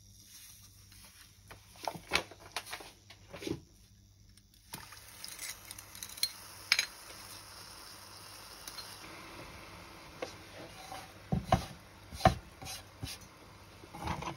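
A metal measuring spoon and other utensils clinking and knocking against a stainless steel saucepan as sugar, water and cardamom seeds are added. From about a third of the way in, a faint steady hiss runs under the clinks.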